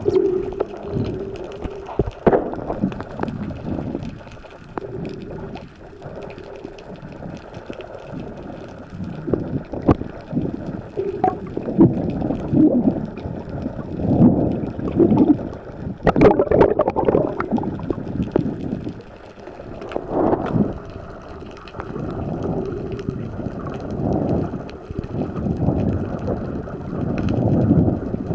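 Muffled underwater water noise with gurgling, as heard by a submerged camera, swelling and fading irregularly every second or two with scattered small clicks. A faint low hum comes and goes.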